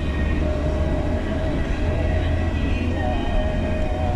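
Steady road and engine noise heard inside a car's cabin while cruising on a highway: a deep rumble with an even hiss over it.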